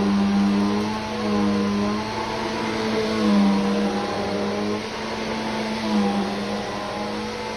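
Vacuum cleaner running: a steady motor hum over a rush of air, its pitch wavering slightly as it works.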